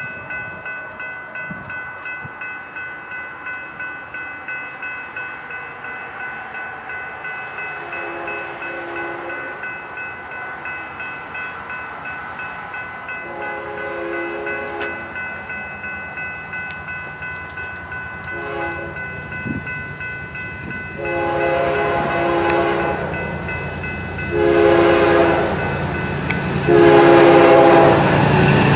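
A grade-crossing warning bell rings steadily at about one and a half strikes a second while an approaching BNSF diesel freight locomotive sounds its multi-chime air horn in the long, long, short, long crossing pattern, then two more long blasts. The train's rumble swells over the last several seconds as the lead locomotive nears the crossing at speed.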